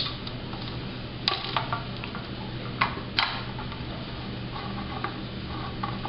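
Small metallic clicks and ticks of a Phillips screwdriver and loose screws being worked out of the metal top plate of a NAS enclosure, with a few sharper clicks in the first half, over a steady low hum.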